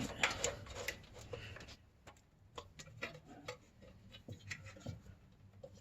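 Scattered light clicks and taps, irregular and short, from small computer parts and hardware being handled.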